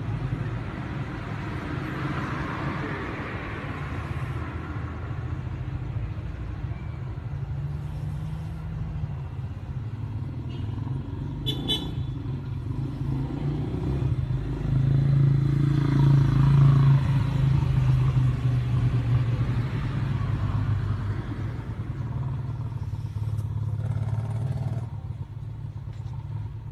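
Low, steady engine hum of a motor vehicle running nearby, growing louder about halfway through and then easing off, with a single sharp click just before the middle.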